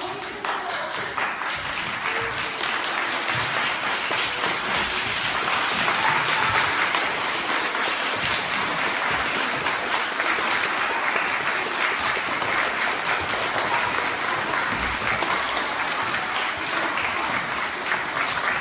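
A large group of schoolchildren and adults applauding: a dense, steady clatter of many hands clapping, which swells over the first couple of seconds and then holds loud.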